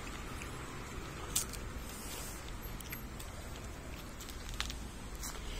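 Quiet outdoor background: a steady low rumble of distant road traffic, with a few faint clicks.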